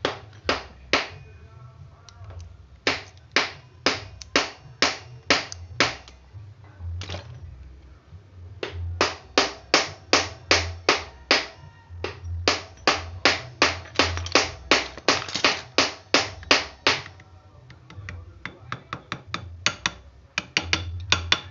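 Background music with a steady beat of sharp, evenly spaced percussion clicks over a pulsing bass.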